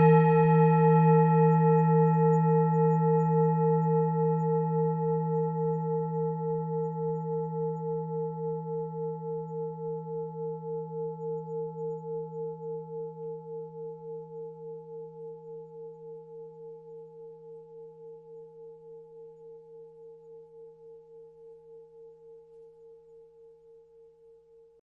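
Tibetan singing bowl ringing out after being struck: a few steady tones with a wavering pulse of a couple of beats a second, fading slowly until almost gone near the end.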